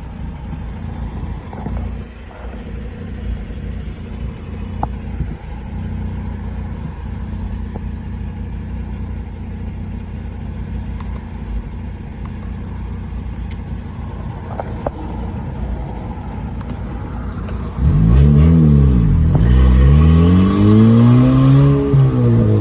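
Turbocharged 2011 Honda Accord coupe engine running steadily at low revs while driving. About 18 seconds in it gets much louder as the engine is revved hard under acceleration: the pitch rises and falls, climbs again, and drops off at the very end. The engine is misfiring on several cylinders.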